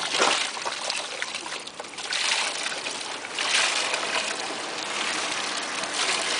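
Liquid spraying and splashing out of the hose of a small 100 V mortar pump, a hissing spatter that surges and eases several times.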